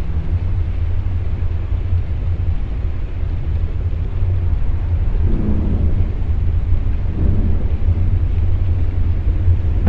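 A steady, deep low rumble, a sound-design drone under the scene, with faint fuller swells about five and seven seconds in.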